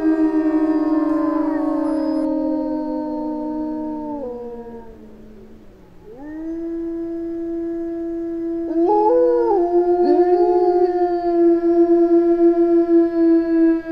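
Wolf pack howling in chorus. Several overlapping long howls slide down in pitch and fade out about five seconds in. Then a single howl rises and holds steady, and other wolves join with short rising-and-falling calls about nine and ten seconds in.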